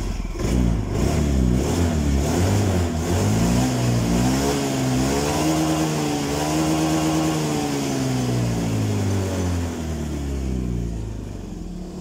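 Fuel-injected automatic scooter engine revved under throttle: its pitch climbs slowly for about six seconds, holds, then falls back toward idle near the end. It revs smoothly without stalling, as a test rev that shows no fault.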